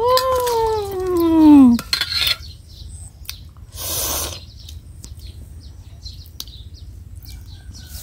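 A woman's long, drawn-out vocal sound made with pursed lips, its pitch falling steadily for nearly two seconds. About four seconds in comes a short, breathy exhale.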